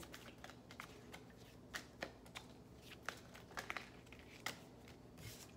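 Tarot deck being shuffled in the hands: faint, irregular clicks and rustles of the cards.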